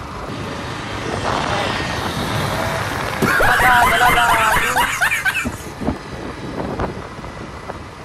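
Yamaha MT-15 motorcycle running along the road, with wind rushing over the microphone. About three seconds in, a louder burst of choppy, stepping pitched sound rises over it for a couple of seconds.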